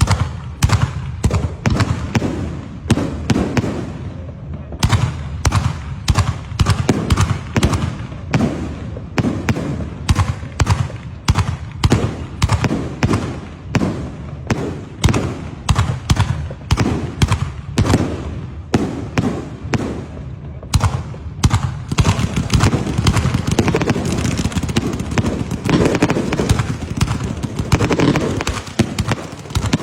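Fireworks going off in a rapid series of sharp bangs, about two a second. About two-thirds of the way in they thicken into a dense, continuous crackling.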